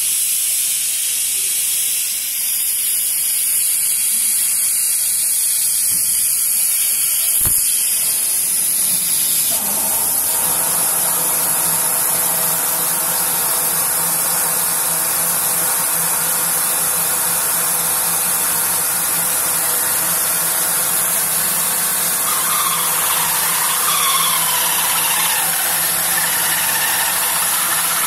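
Artikon DG604 CNC router running, its spindle giving a steady high-pitched hiss; about ten seconds in a lower steady machine hum joins, as of the machine starting to cut.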